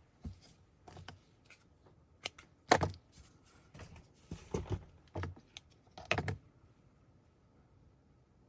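Irregular light knocks and clicks of craft supplies being handled and set down on a tabletop while string is fetched. The loudest knock comes a little under three seconds in, with a cluster of knocks around five to six seconds.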